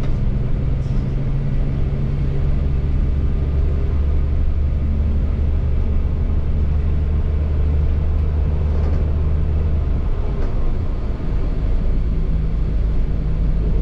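Scania K360iB bus's diesel engine droning steadily under way. About ten seconds in, the deep drone eases and its pitch shifts.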